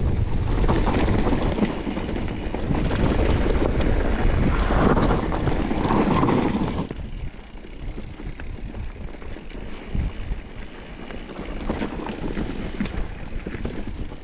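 Wind buffeting the camera microphone on a mountain-bike descent, easing off about halfway through and leaving the scattered clicks and rattles of the bike over rough ground.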